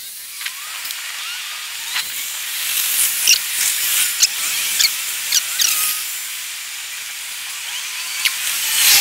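Street ambience sped up twelvefold, so traffic and city noise become a steady high hiss. Short high chirps and quick squeaky glides are scattered through it.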